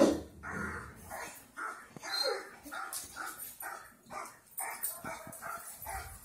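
Dog barking over and over, about two barks a second, with a louder first bark at the very start.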